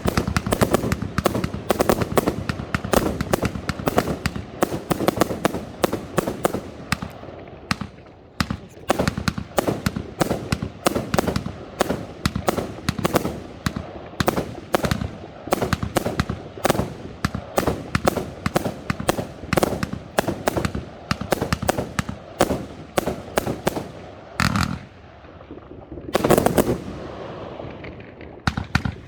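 Large category F4 display fireworks going off: dense rapid volleys of sharp bangs and crackling. A short lull comes about three-quarters through, then a big burst with a fading crackle, and rapid bangs start again near the end.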